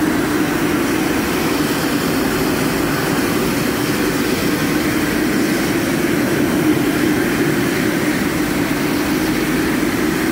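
Commercial gas wok range burners burning at full flame with a loud, steady, even rush.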